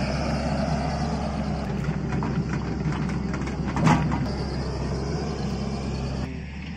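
Tracked excavator's diesel engine running steadily, with a short louder noise about four seconds in. The engine sound drops away shortly before the end.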